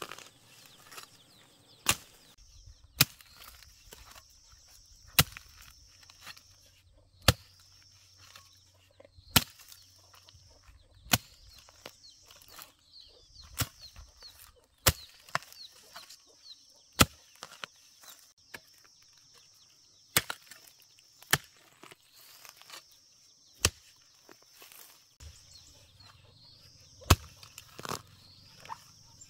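A hoe with a bamboo handle chopping into dry soil around clumps of plants: a sharp strike every second or two. A high, thin buzzing comes and goes between the strikes.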